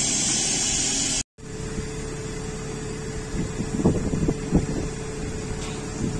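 Large tire-handler forklift running steadily, with a strong hiss. It cuts off abruptly about a second in, giving way to a quieter steady machine hum with a few irregular knocks near the middle.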